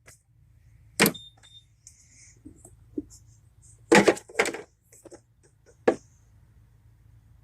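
Sharp metallic clanks and knocks of tools and parts during car repair work: one about a second in, a pair around four seconds, one near six, over a low steady hum.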